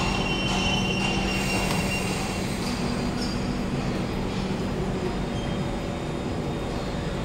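Kawasaki Heavy Industries C151 metro train, GTO-VVVF variant, pulling into a station and braking, its running noise slowly easing as it slows. A thin, steady high whine stops about two and a half seconds in.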